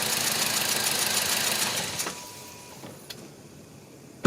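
Four-cylinder engine of a 2009 Toyota Matrix idling with a stored cylinder 1 misfire code (P0301), switched off about two seconds in so that the running sound dies away; a faint click follows about a second later.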